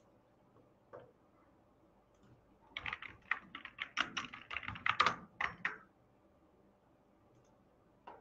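Typing on a computer keyboard: a quick run of keystrokes starting a little under three seconds in and lasting about three seconds, with a lone key click before it and another near the end.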